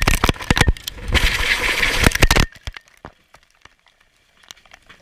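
Helicopter crash impact: a loud, rapid run of cracks and smashing blows as the aircraft breaks up on hitting the ground, cutting off suddenly about two and a half seconds in, followed by faint scattered ticks.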